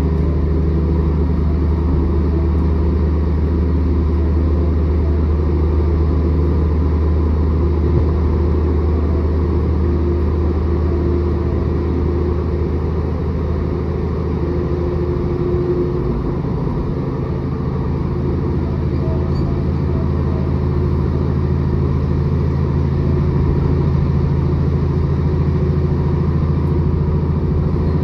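Cabin sound of a Class 156 diesel multiple unit: the underfloor Cummins diesel engine drones steadily under a rumble of wheels on the track. About halfway through the engine note shifts to a different pitch.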